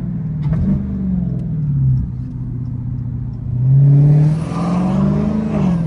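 Dodge Hellcat's supercharged 6.2-litre Hemi V8 under acceleration. The engine note climbs, eases off, then climbs again loudly about three and a half seconds in, dropping briefly near the end.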